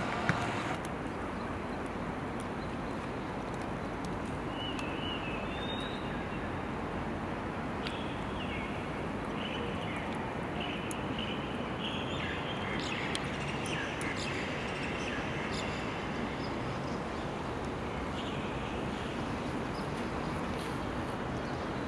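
Steady open-air background noise with faint, high bird chirps starting about four seconds in and coming more often in the second half.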